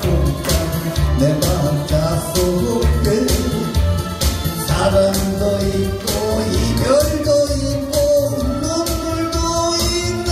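A man singing a Korean trot song live into a microphone over a backing track with a steady beat, holding and bending long notes.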